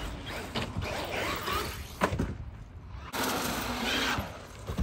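Traxxas Maxx RC monster truck's electric motor and tyres running hard over concrete in two spurts, with a sharp knock about two seconds in.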